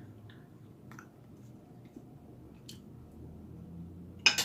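Quiet eating sounds: a few faint clicks and squishes, then one sharper short click near the end.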